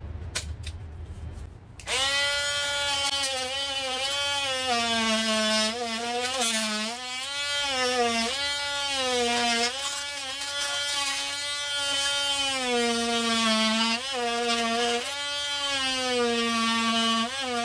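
Parkside PAMFW 20 Li B2 cordless oscillating multi-tool running with its scraper blade, a loud, high buzz that starts about two seconds in. Its pitch dips briefly several times as the blade is worked against the surface.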